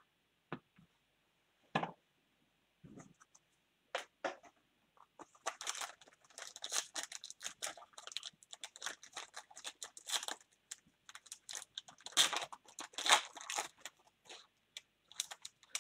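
A few light clicks, then the foil wrapper of a Panini baseball card pack crinkling and tearing as it is opened by hand, from about five seconds in, with a short pause before a last burst of crinkling near the end.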